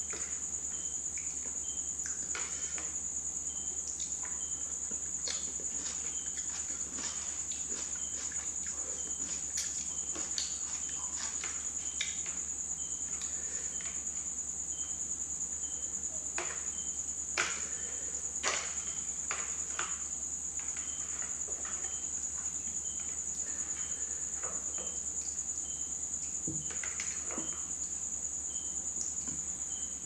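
Noodle-eating sounds: chopsticks clicking and scraping in a plastic bowl of noodle soup, with slurps and chewing, two louder clicks a little past halfway. A constant high-pitched whine runs under it all and is the loudest sound.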